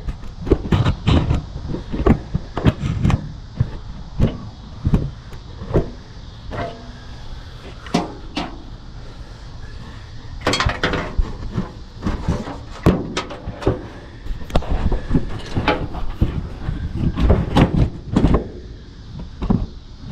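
Camera handling noise: irregular knocks, clicks and scrapes, tens of them at uneven spacing, as the camera is moved about and fitted against the truck's metal body.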